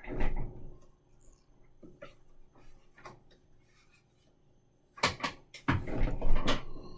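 Wine-tasting mouth sounds: a short sound as the taster takes the red wine, then from about five seconds in a loud run of slurping and swishing with wet clicks and hiss, as air is drawn through the wine on the palate.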